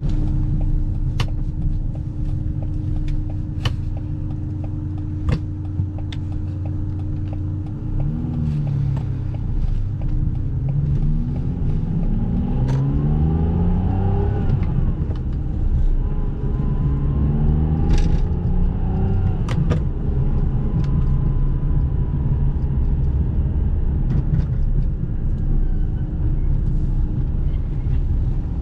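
A 2005 Ferrari 612 Scaglietti's V12 engine, heard from inside the cabin. It runs steadily at low speed, then from about eight seconds in rises in pitch again and again as the car accelerates up through the gears. A few sharp clicks sound over it.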